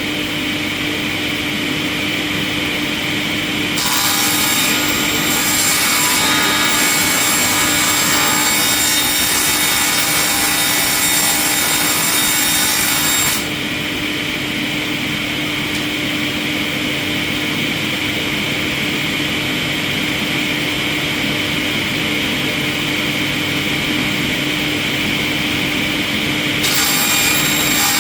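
Industrial wood chipper running with a steady hum. About four seconds in, a loud grinding of wood starts suddenly and stops just as suddenly about nine seconds later, then starts again near the end.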